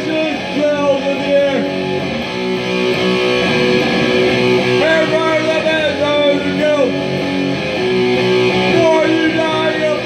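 Electric guitar strummed through a rock song, with a man singing lines at the start, around the middle, and again near the end.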